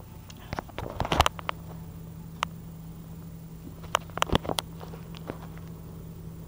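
Scattered sharp clicks, taps and rubbing noises from a cat rolling on carpet and bumping against the camera filming it, in clusters about a second in and again around four seconds, over a steady low hum.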